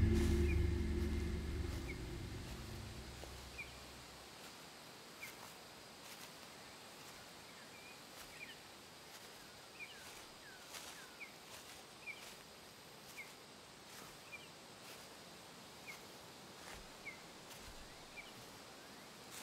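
A low drone fades away over the first few seconds, leaving quiet outdoor ambience in which small birds chirp, short high chirps about once a second, with a few faint clicks.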